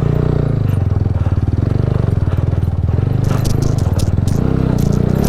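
TVS Apache RTR 200's single-cylinder engine running steadily with a fast, even firing pulse. It comes in suddenly at the start, and a few light clicks and rattles follow later on.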